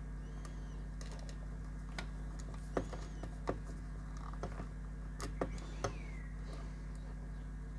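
Scattered small clicks and taps of wires and connectors being handled and pushed into a terminal, over a steady low electrical hum, with a few faint high chirps.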